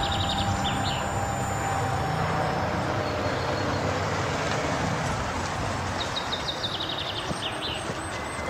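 A Renault Mégane coupé driving slowly along an unpaved road and passing close: steady engine and tyre noise on gravel. A bird chirps a few times about six seconds in.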